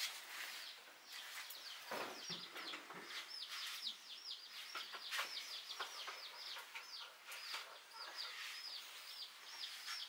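Bird chirping: a continuous run of short, high, falling peeps, several a second. A few faint knocks sound in the first few seconds.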